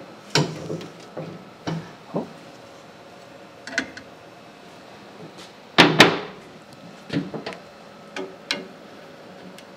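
Scattered knocks and metallic clanks as the sheet-metal wheel covers and fittings of a DoAll contour band saw are handled and shut, the loudest a double clank about six seconds in.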